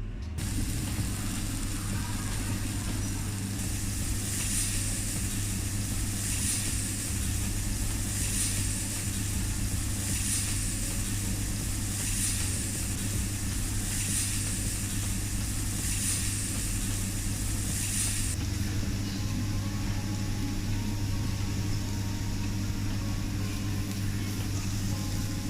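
Steady low hum of a kitchen extractor with a continuous hiss of food sizzling on a teppanyaki griddle; a soft high hiss swells about every two seconds through the middle of the stretch.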